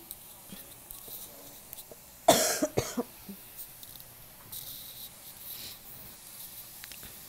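A person coughs twice in quick succession, about two seconds in. Later come softer rustles of laminated menu pages being turned.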